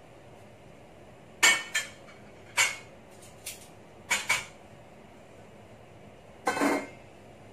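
Metal kitchen utensils and pots clinking and knocking: a string of short, sharp clinks, with a longer clatter near the end.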